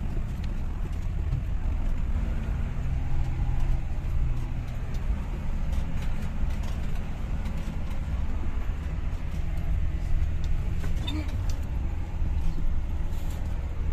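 Vehicle engine running under load, heard from inside the cabin as a steady low rumble, while the vehicle drives slowly through a river.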